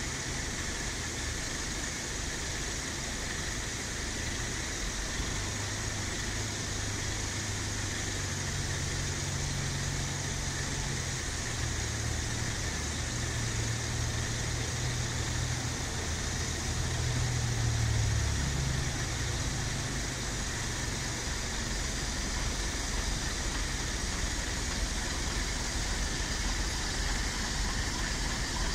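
Diesel engine of a vintage Routemaster double-decker bus running as it draws up to the kerb, loudest about two-thirds of the way through, over a steady hiss of road traffic.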